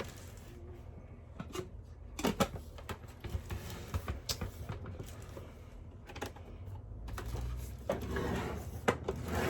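Handling noise from unpacking a coffee machine and its packaging: scattered light knocks and clicks, a few sharper knocks a couple of seconds in, and a low rumble building near the end.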